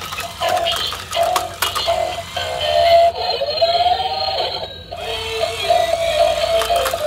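Battery-powered Spider-Man dancing toy playing an electronic tune with synthesized singing, with short clicks scattered through it as it dances. For a couple of seconds in the middle the tune turns thinner and plays a gliding, swooping figure.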